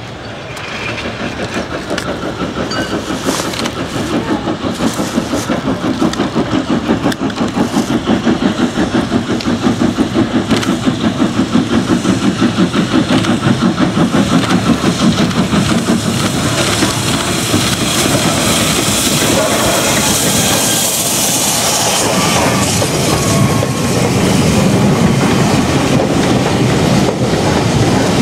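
LSWR M7 class 0-4-4 tank steam locomotive approaching under steam. Its exhaust beats come fast and rhythmic and grow louder, and a hissing rush follows as it passes close, about two-thirds of the way through. Then the coaches run by, rumbling and clattering over the rail joints.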